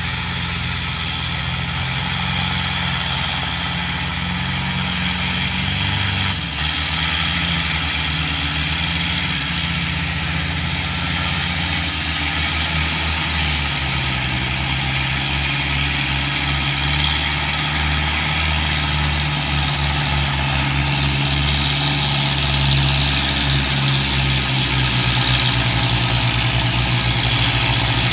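Diesel tractor engines running hard under load, hauling a loaded trolley, with a steady throbbing firing beat that grows a little louder toward the end as the tractors come closer.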